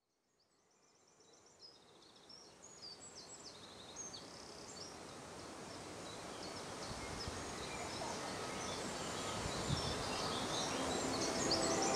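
Woodland birdsong: many small birds chirping and trilling over a steady noisy background, fading in from silence and growing steadily louder. Near the end a held low musical tone begins to come in.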